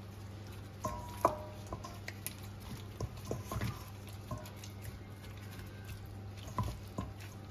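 Soft wet squelching and light taps as a gloved hand rubs red food colouring into raw chicken pieces in a stainless steel bowl, with the bowl giving brief metallic pings about a second in and again near the end.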